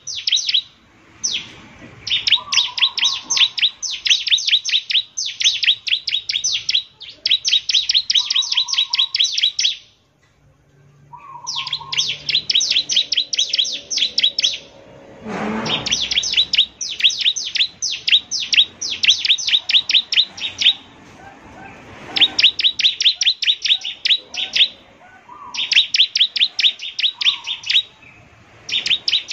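Bar-winged prinia singing: rapid, high repeated notes, about ten a second, in phrases of one to three seconds with short pauses between. A short noise breaks in near the middle.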